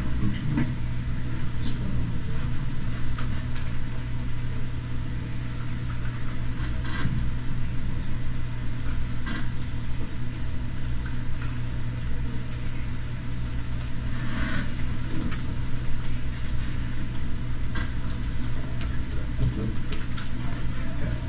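Steady low hum of room background noise, with scattered faint clicks from a computer keyboard as a command is typed.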